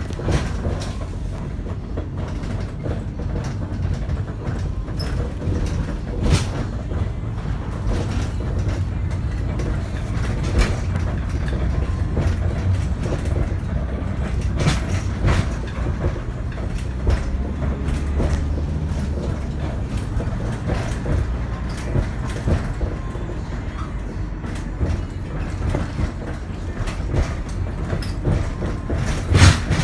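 Low, steady rumble of a vehicle driving, heard inside the cabin, with frequent knocks and rattles throughout.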